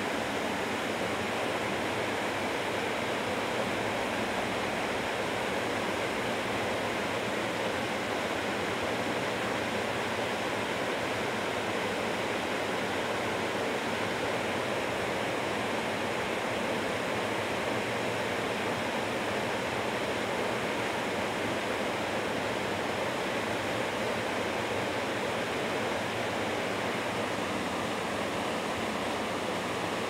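Waterfall: white water falling onto rocks and into a pool, a steady, even rush.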